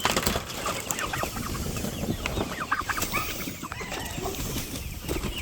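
A flock of chickens clucking and calling, many short overlapping calls throughout, over a low rumble of background noise.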